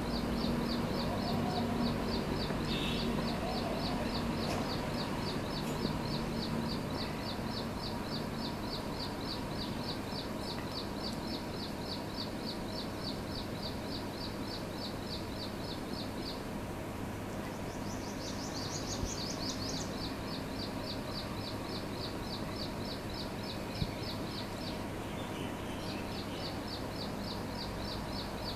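Rapid, evenly repeated high chirps, several a second, from an unseen small creature. They break off a little past halfway for a short, higher trill, then resume.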